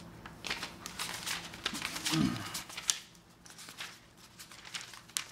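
Paper rustling and pages being turned as notebooks are leafed through and handled, with scattered small clicks. A short low falling sound about two seconds in is the loudest moment.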